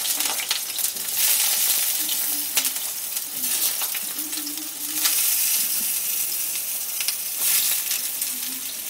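Raw bottle gourd wedges sizzling in hot mustard oil in a steel kadai, the sizzle flaring up several times as more pieces are laid into the oil.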